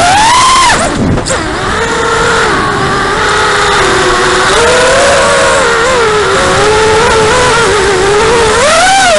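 Brushless motors and HQ 5040 tri-blade props of a 5-inch FPV racing quadcopter (Xnova 2204 2300kv motors on 4S) whining with the throttle, heard from the onboard camera. The whine rises at the start, drops sharply about a second in, wavers up and down, and climbs again near the end.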